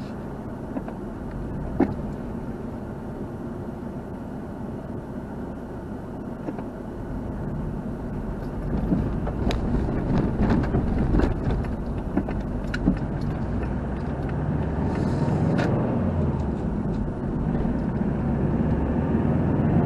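Car heard from inside its cabin, first running slowly and waiting with a low steady rumble, then louder from about halfway as a tanker truck passes close in front and the car pulls away, with scattered short clicks and knocks and rising road and tyre noise near the end.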